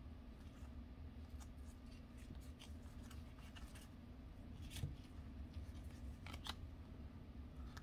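Panini Absolute football trading cards handled in gloved hands, each card slid off the front of the stack and moved behind it, giving scattered short clicks and papery swishes. The loudest come a little under five seconds in and again about six and a half seconds in.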